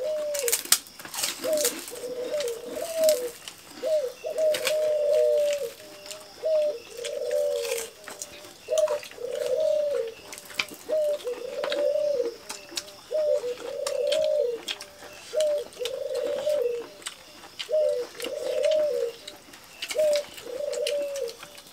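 A dove cooing over and over, a long unbroken run of rising-and-falling coos about one a second, with small clicks and smacks of people eating with their hands.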